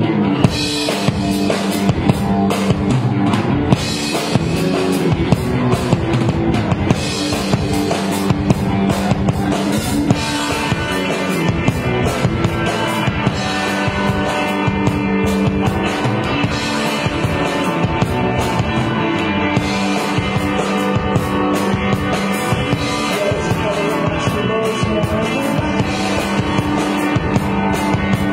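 Live rock band playing, with a drum kit keeping a steady beat under electric guitars.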